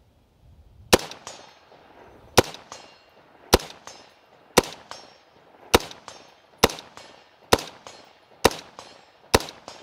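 A 7.62x39 AR-15-pattern rifle fired semi-automatically, nine shots at a steady pace of a little over one a second, each ringing out briefly. It is cycling and feeding from a Bakelite AK magazine, which seemed to work just fine.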